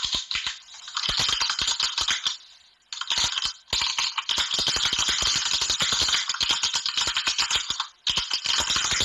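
Rapid keyboard-typing clicks, a typing sound effect that runs while the on-screen text is typed out. The clicks come in fast runs with short pauses, the longest about two and a half seconds in.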